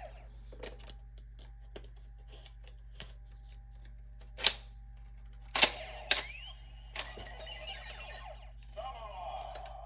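Sharp plastic clicks from a Power Rangers Megaforce Gosei Morpher toy as the Samurai Yellow card is loaded and its button pressed. About halfway through the toy starts playing its electronic sound effects and a tinny recorded voice callout from its small speaker, with gliding tones near the end.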